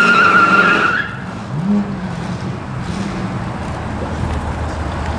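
A car gives a short high-pitched squeal in the first second, then its engine blips once with a quick rise in pitch and settles into a steady low running note.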